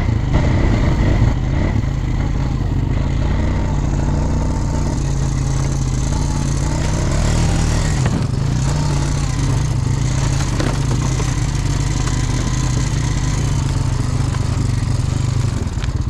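ATV engine running steadily at a constant low pitch, with only small changes in speed.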